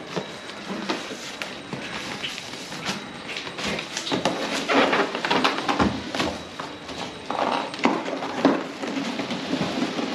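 Cardboard packaging being handled: irregular rustling, scraping and light knocks as an inner box is worked out of an outer carton.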